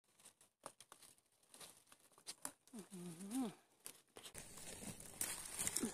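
Faint crackling and rustling of dry leaf litter and plant stems being handled, a rapid scatter of small clicks. About three seconds in a short hummed voice rises and falls, and after about four seconds a steady hiss of the surroundings comes in with more rustling.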